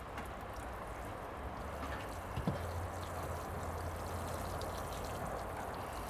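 Water sprinkling from the rose of a metal watering can onto soil and plant leaves, a steady shower of spray.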